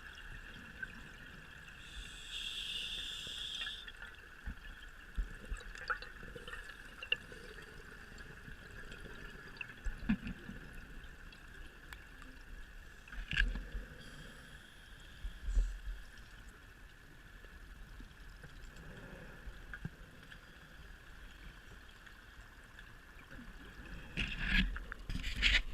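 Scuba diver's breathing heard underwater: a hiss of breath through the regulator a couple of seconds in, and bubbly gurgles of exhaled air several times later, over a steady high-pitched hum.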